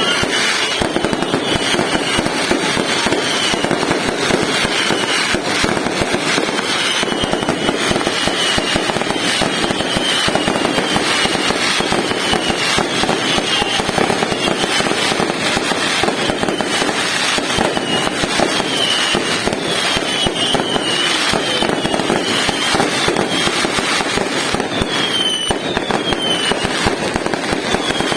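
Fireworks crackling densely and without pause, with short whistles that fall in pitch recurring every second or two.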